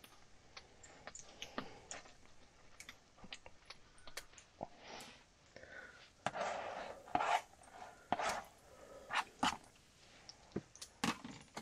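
A dog vocalising in a small space in several short bursts, a run of them about halfway through and more near the end, over scattered sharp clicks.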